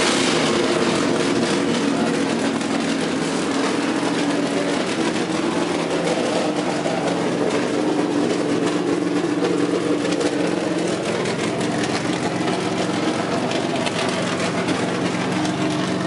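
NASCAR Toyota stock car's V8 engine idling steadily, its note holding an even pitch with only small wavers.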